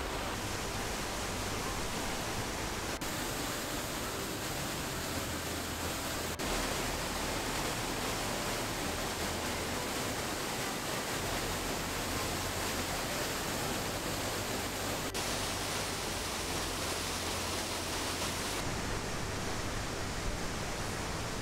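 Steady rushing of a cascading mountain stream and waterfalls, an even roar of water. The tone shifts a little at each of several cuts; the hiss thins out near the end.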